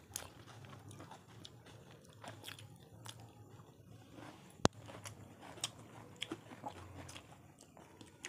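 Close-up eating sounds of people eating chicken biryani by hand: chewing, small wet mouth clicks and fingers working the rice on the plates. A single sharp click about four and a half seconds in is the loudest sound.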